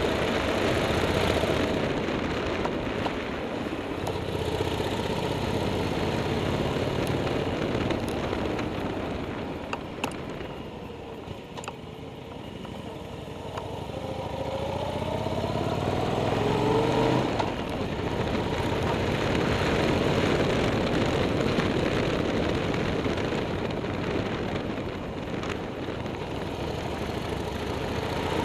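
Motorcycle engine pulling uphill under a steady rushing noise. Around ten seconds in it eases off, then its pitch climbs as it accelerates from about fourteen seconds and drops sharply near seventeen seconds, as at a gear change, before it runs on steadily.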